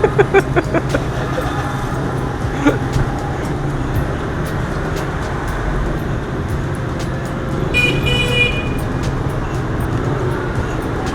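Steady city street traffic, engines running, with a horn sounding briefly about eight seconds in.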